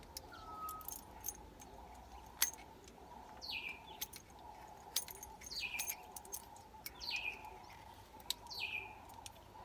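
A bird calling over and over, each call a short note falling steeply in pitch, about one a second from a few seconds in. Between the calls there are a few sharp light clicks of small metal parts being handled.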